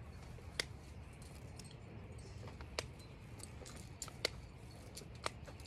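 Metal trad climbing gear clinking: a few separate sharp clicks of carabiners and protection knocking together, about four in all, over a low steady background rumble.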